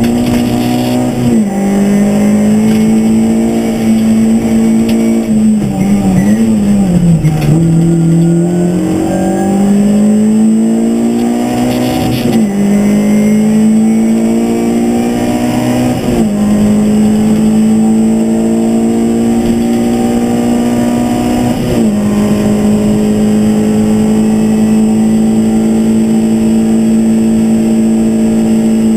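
Škoda Fabia rally car engine heard from inside the cabin, running hard at high revs: the pitch drops sharply at each gear change and climbs again. About six seconds in it falls away as the car slows, then rises again, and it holds a steady high note near the end.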